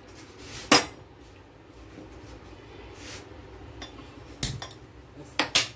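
A stainless steel saucepan of water being set onto a gas stove burner. It gives a few sharp metal clinks and knocks against the pan supports, the loudest just under a second in and two close together near the end.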